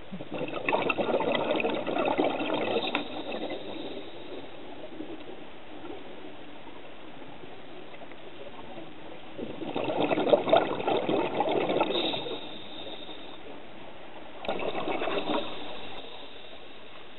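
A scuba diver's regulator venting exhaled air, heard underwater as bursts of bubbling: three exhalations, the first two about three seconds each, the last shorter, near the end.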